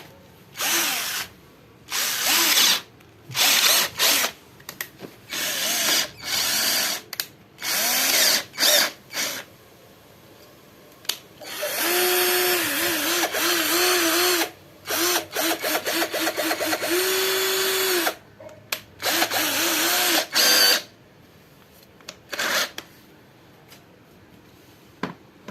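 Cordless drill motor run in repeated short trigger pulls, spinning up and winding down, its pitch rising and falling as the trigger is squeezed and eased. In the middle it runs for about six seconds with the speed varying.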